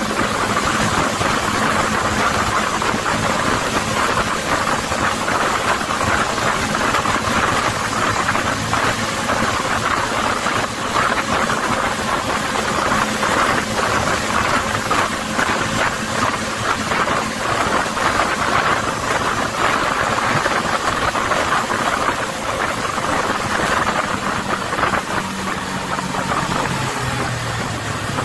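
Intercity bus engine running at speed with steady road and wind noise, heard from the following bus; the engine note rises near the end as it closes on the bus ahead.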